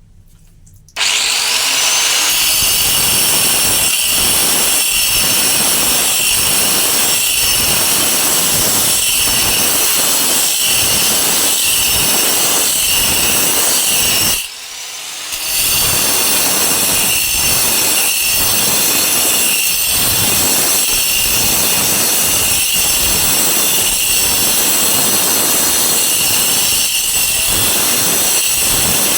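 Power grinder cutting into stone for a stone mortar, with a steady high whine that surges about once or twice a second as the tool is worked back and forth. It starts about a second in and stops briefly about halfway through before cutting again.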